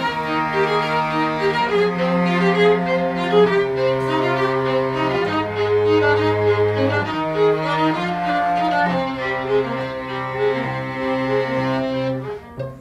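Live bowed string trio with cello and violins playing slow, held notes that change every second or two, the cello's low line moving beneath. The music softens near the end.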